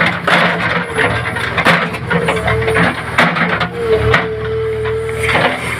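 Heavy construction machine running, with repeated clanks and rattles over a low rumble and a steady whine that stops and starts.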